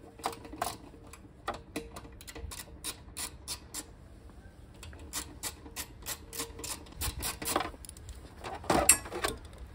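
Irregular light clicks and taps from a screwdriver working the fasteners of a Yamaha YBR 125's plastic side panel, with a louder rattling clatter near the end.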